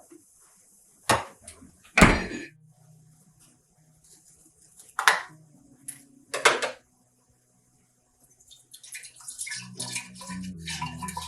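Kitchenware being handled and set down: a few separate sharp clatters with a brief ring, the loudest about two seconds in. Near the end a busier run of clattering begins as water starts to run.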